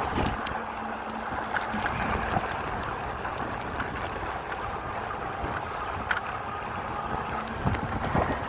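Steady rush of wind and rain noise on the microphone of a moving e-bike, with scattered small clicks and knocks.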